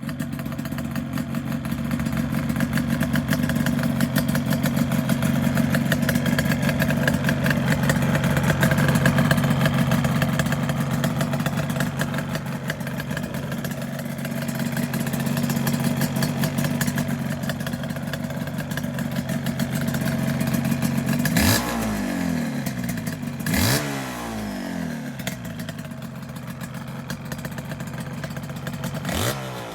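Yamaha RZ250R's two-stroke parallel-twin engine running steadily at idle through silencers clogged with carbon, then blipped three times near the end, the revs rising and falling each time. The carbon build-up has left the exhaust sounding close to firecrackers.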